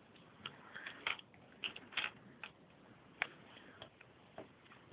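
Plastic Lego bricks clicking and tapping as pieces are handled and pressed onto a model, in a string of about ten small, irregularly spaced clicks.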